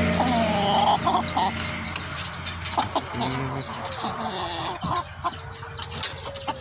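Chickens clucking in short, repeated calls.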